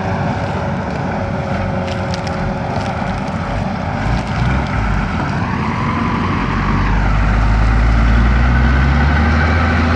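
Engines of an MTZ-80 tractor and a ZIL-130 truck working hard to drag the loaded truck out of mud. One engine revs up and back down about halfway through, then a deep, steady engine drone grows louder toward the end.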